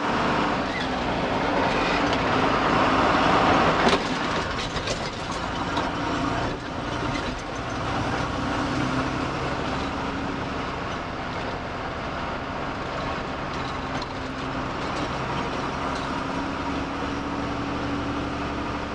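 Inside the cab of a moving truck: the engine running steadily under road and tyre noise, with light rattling clicks.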